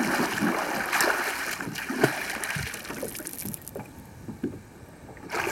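River water splashing as a swimmer ducks under the surface, with sharp splashes over the first few seconds, then the water settling into quieter lapping and trickling. The noise rises sharply again near the end.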